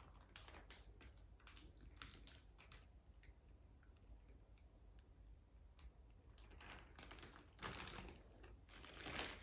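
Faint crinkling and clicking of a plastic zip bag being squeezed and tipped to pour out a mashed-banana mixture, with louder rustles about two-thirds in and near the end.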